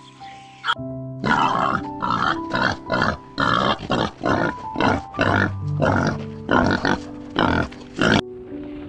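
Wild boars grunting in a fast run of short, rough grunts, about two to three a second, starting about a second in and stopping shortly before the end.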